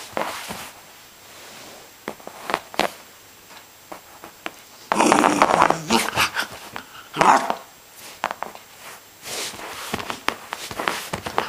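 Irish terrier puppy growling in play, with the loudest bursts about five and seven seconds in, and short taps and scratches of his paws on the cushion between them.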